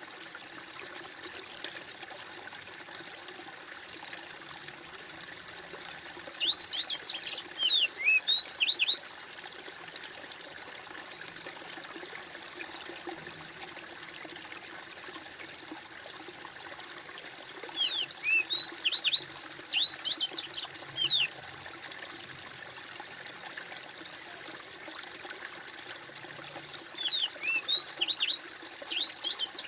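Water trickling and gurgling steadily. A small bird chirps and sings in three bouts of quick, high notes, each about three seconds long, near the start, around the middle and at the end.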